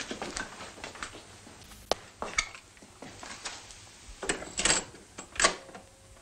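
Scattered clicks, knocks and clatter of objects being handled at a low cabinet while music is being put on. There is a sharp click about two seconds in, and the loudest knocks come between about four and a half and five and a half seconds in.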